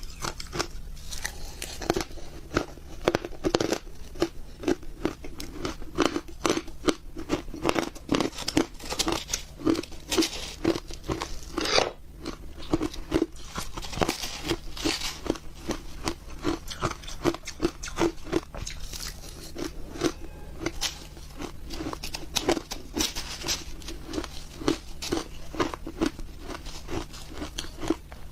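Close-miked crunching of ice being bitten and chewed, a steady run of sharp crunches about two or three a second.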